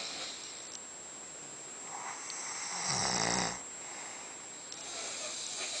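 Snoring in sleep: a slow breath in, then one loud snore with a low rattle about three seconds in, and a softer breath near the end.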